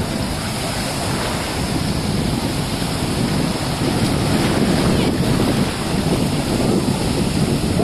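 Small waves breaking and washing in the shallows of a sandy beach, heard as a steady rush of surf, with heavy wind buffeting on the microphone.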